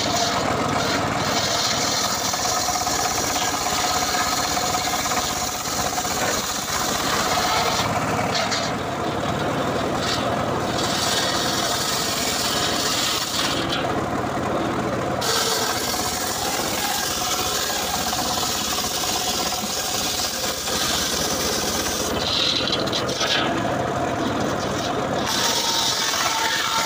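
Homemade bench circular saw ripping a dry acacia log: the engine-driven blade runs steadily while its teeth rasp through the wood. The high cutting hiss drops away briefly a few times while the drive keeps running.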